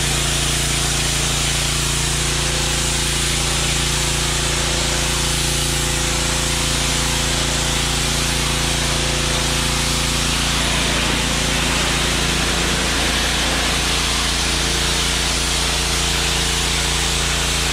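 Compact tractor's diesel engine running at a steady speed, with a constant low drone and a wide mechanical hiss over it.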